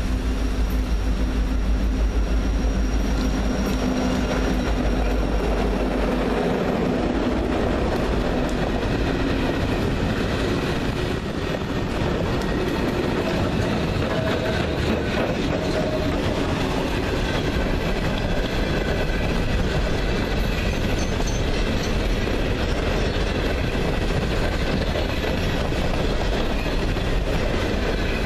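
A six-unit lash-up of diesel-electric locomotives (EMD SD70ACe and SD40-2, GE C40-9, ES40DC and C40-8W) running past under power, with a deep engine rumble strongest in the first several seconds. The train's empty coal hoppers follow, their wheels rolling steadily over the rails with a continuous rumble and rattle.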